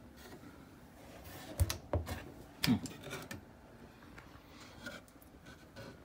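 Cabinet door being worked by hand: three sharp clicks and knocks, from about a second and a half to three seconds in, the last with a short creak.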